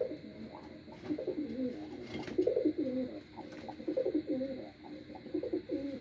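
Domestic white pigeons cooing: a low coo phrase repeated several times in a row, about a second apart.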